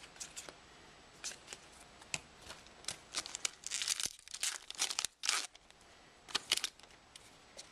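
Trading card pack wrapper being torn open and crinkled by hand: a run of short, sharp crackles, thickest in the middle.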